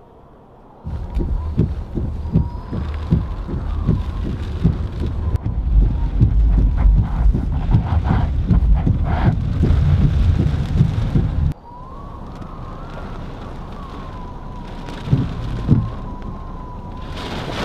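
Hurricane wind and heavy rain battering a vehicle, heard from inside the cabin: a loud, low, gusting rumble with sharp buffeting thumps that drops off abruptly about eleven seconds in, leaving steadier rain noise and a thin high whistling tone.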